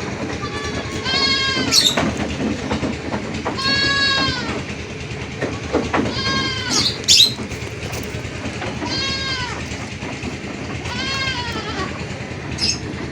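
Goats bleating: five drawn-out bleats of about a second each, two to three seconds apart, each rising and then falling in pitch, with a few short high squeaks between them.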